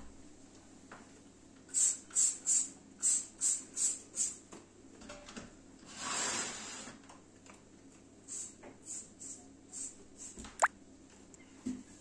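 Trigger spray bottle spraying cleaner onto window glass: a quick run of about seven short sprays, a longer hiss about six seconds in, then a few softer sprays and one sharp click near the end.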